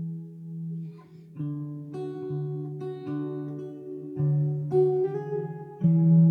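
Acoustic guitar played solo, chords and notes left to ring out. There is a brief quiet dip about a second in, then new chords strike again and ring.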